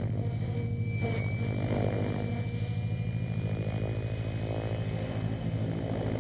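Align T-Rex 800 DFC Pro HV electric RC helicopter in flight: its main rotor blades chop steadily with a fast, even low beat. A thin, steady high whine runs above it.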